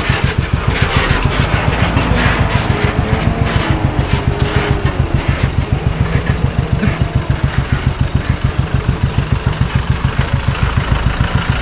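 Royal Enfield motorcycle riding at a steady cruise: an even, rapid low pulsing from the engine and exhaust, with road and wind noise over it.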